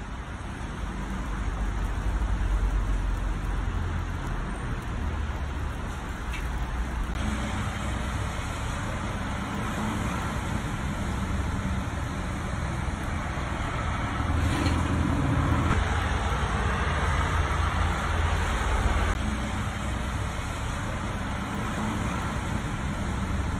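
Steady outdoor background noise: a low rumble with a hiss over it. Its texture shifts a few times, at the cuts between clips.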